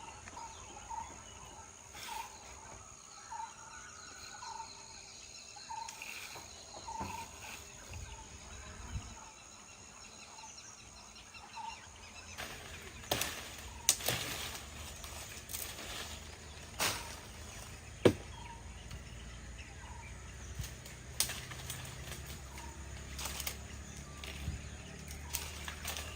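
Outdoor ambience: a bird gives short chirps over and over for the first twelve seconds or so. Then come scattered sharp knocks and cracks, the loudest about 14 and 18 seconds in, over a low rumble.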